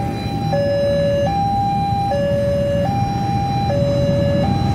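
Railway level-crossing warning alarm sounding a two-tone hi-lo siren: a higher and a lower tone alternate, each held a little under a second, signalling that a train is approaching. Low engine rumble runs underneath.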